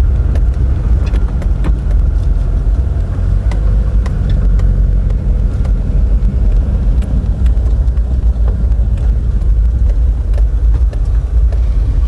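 Inside a vehicle driving on a rough gravel track: a steady low rumble of engine and tyres on gravel, with scattered small knocks and rattles.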